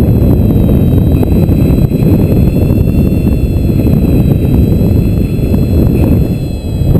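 Wind buffeting the microphone of an action camera flying under a paraglider: a loud, steady low rumble that eases briefly near the end.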